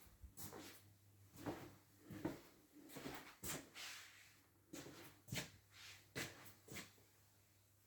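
Faint, scattered knocks, taps and rustles, about a dozen short sounds at uneven intervals, dying away near the end.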